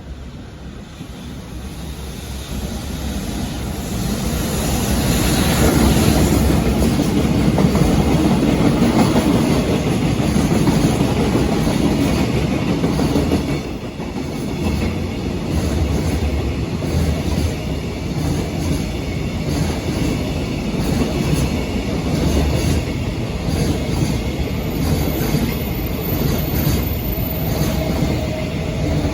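JR Freight freight train passing. It grows louder over the first several seconds as it approaches, then a long string of wagons rolls by with a steady clatter of wheels on the rails.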